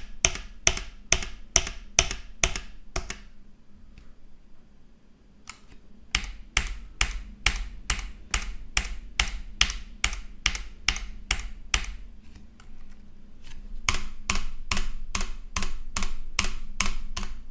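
Typing on a Keychron K3 low-profile wireless mechanical keyboard with Keychron optical brown switches: sharp key clicks at about two to three strokes a second. The strokes pause for a few seconds near the start and come faster near the end.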